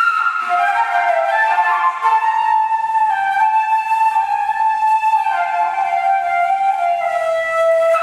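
Slow solo woodwind melody, flute-like. It holds one long note through the middle, then steps down to a lower note near the end.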